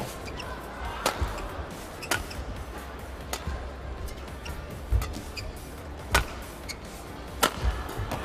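Badminton rackets striking a shuttlecock back and forth in a rally: six sharp cracks roughly a second apart, with short squeaks of shoes on the court between them, over a low murmur of the arena crowd.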